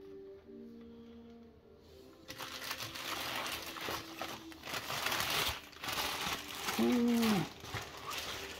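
Clear plastic wrapping crinkling and rustling as it is handled and pulled back from a large statue in its foam tray, starting about two seconds in. Near the end comes a short vocal 'ooh' whose pitch rises and falls.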